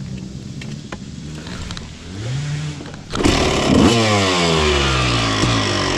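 Motorcycle engine running at a low level, then revving up loudly and suddenly about three seconds in, its pitch falling away after the rev.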